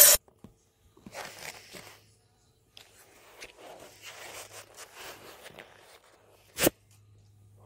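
Faint, irregular rustling and scraping of handling noise, with one short sharp knock about six and a half seconds in.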